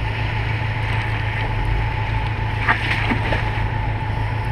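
2013 Jeep Wrangler's 3.6-litre V6 running at low revs, a steady low hum, as the Jeep crawls slowly off a rock into a muddy puddle.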